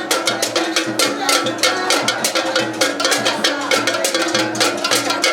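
Traditional drumming and percussion music from a cultural troupe, with fast, dense strikes over a sustained pitched backing.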